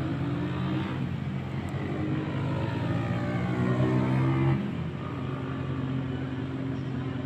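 A steady, low engine drone with slowly shifting higher tones, growing a little louder and then dropping about four and a half seconds in.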